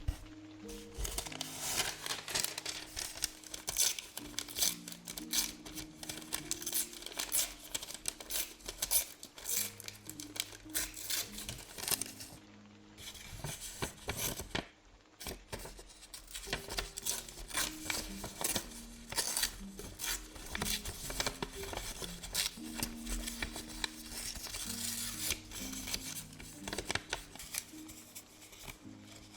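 Scissors cutting paper in many short snips, with paper rustling and being handled, over soft background music.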